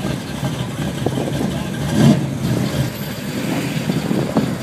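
Engines of a classic car and a lifted pickup truck running as they drive slowly past, getting loudest about two seconds in.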